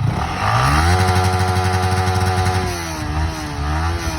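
Yamaha MT-15 V1's 155 cc single-cylinder engine being revved. It climbs quickly about half a second in, holds steady for about two seconds, then drops back with a couple of short blips near the end.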